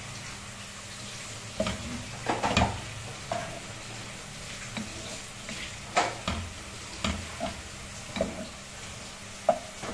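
Sliced onions sizzling in oil in a stone-coated pot, stirred with a wooden spatula that scrapes and knocks against the pot at irregular intervals, loudest about two and a half and six seconds in. The onions are frying toward brown.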